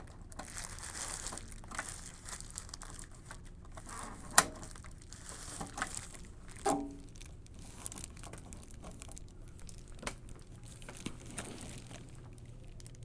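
Plastic bubble wrap crinkling and rustling as it is handled, with scattered small clicks and one sharp click about four seconds in.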